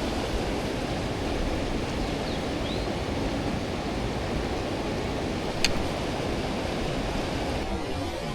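Steady rushing of a mountain stream, with one sharp click about five and a half seconds in.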